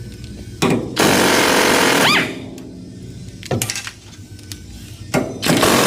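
Impact wrench hammering in several short bursts, the longest about a second, each ending with a brief whine as it spins down, while bolts are run out of a garbage truck's packing-blade side rail.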